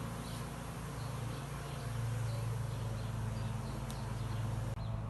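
A clustered honeybee swarm buzzing as a steady, unbroken low hum.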